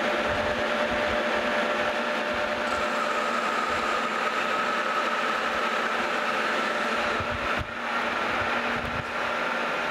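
Metal lathe running steadily, with a few steady tones, as a turning tool cuts along a 1/2-inch metal bar to reduce it to a .378-inch pivot pin. The sound dips briefly a little past three-quarters of the way through.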